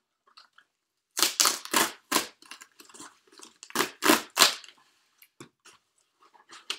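Cardboard record mailer box and its paper insert being opened and handled: loud rustling and tearing strokes in two bunches, a second or so in and again about halfway, with softer scuffs between.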